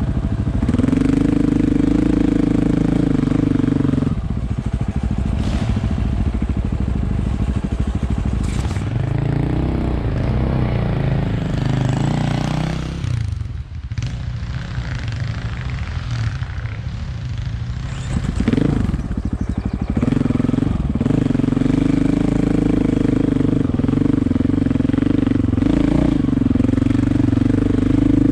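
Motorcycle engine held at high, steady revs. It wavers and eases off around the middle, gives one quick rev about two thirds of the way through, then holds high revs again.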